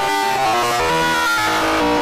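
Music, with a quick-moving melody of stepping notes over other held tones, at a steady level.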